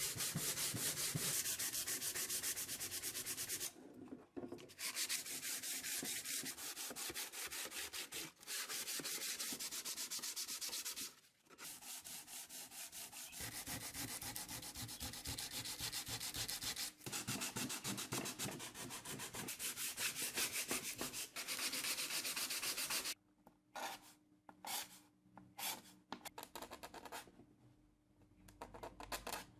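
Wood being sanded in rapid, continuous strokes, with brief pauses about four and eleven seconds in. The sanding stops a little over twenty seconds in, leaving only a few short scrapes.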